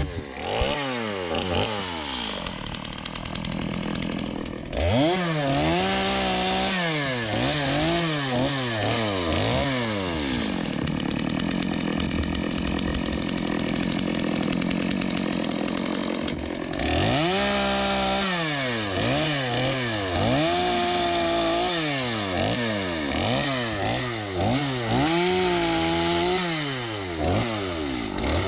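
Two-stroke chainsaw revving up and down in quick, repeated throttle blips. Twice it settles into a longer, steadier stretch of loaded running as it cuts through wood.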